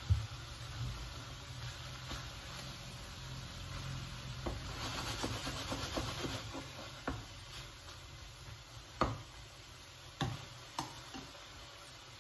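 Wooden spatula stirring and scraping food in a non-stick frying pan over a low sizzle, with a few sharp knocks of the spatula against the pan, the loudest about nine seconds in.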